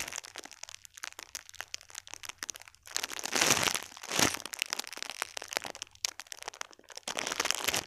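Dense crinkling and crackling from hands handling a squishy toy and plastic close to the microphone, with louder rustles about three and a half and four seconds in.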